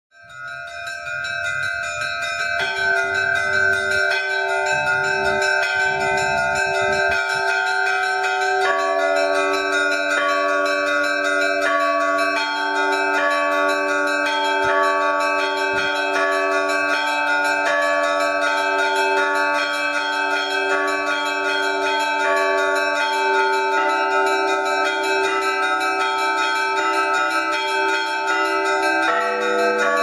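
Church bells ringing, fading in at the start. Strokes come about once a second, and their tones overlap and hang on into a continuous peal. A low rumble sits under the first several seconds.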